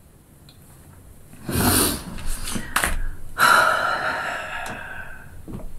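A woman breathes in sharply through the nose, then lets out a long exhale that fades away, with a small click between them.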